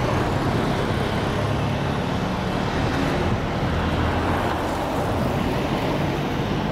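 Boeing 737-700's CFM56-7B jet engines running at low power as the airliner taxis along the runway: a steady rumble with a low hum underneath.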